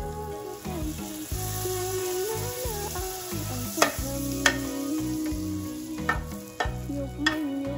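Butter sizzling as a slice of French toast fries in a nonstick pan, with a few sharp clicks of a metal spatula against the pan, the loudest about four seconds in. Background music with a melody over steady chords plays under it.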